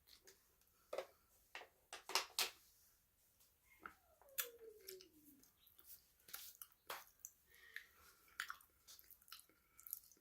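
Close-miked chewing of crunchy food: irregular sharp crunches and wet mouth sounds, loudest about two seconds in, with a short falling tone about four seconds in.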